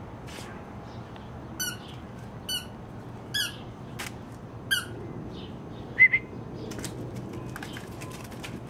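A squeaky ball toy squeaking in short, high squeaks, about one a second, as a puppy bites on it. A louder, sharper squeak comes about six seconds in.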